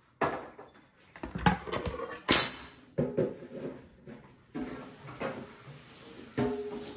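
Cutlery and dishes clattering in a kitchen: about seven irregular knocks and clinks as utensils and bowls are handled and set down, some leaving a short ring.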